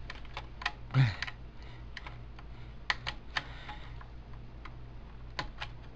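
Scattered sharp clicks and taps at irregular intervals, from plastic computer parts and connectors being handled and pushed into place. A short low grunt comes about a second in.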